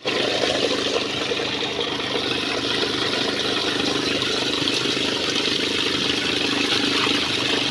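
Electric aerator's spinning mesh impeller churning the water in a tub of live tilapia: a steady rush of splashing over the hum of its motor.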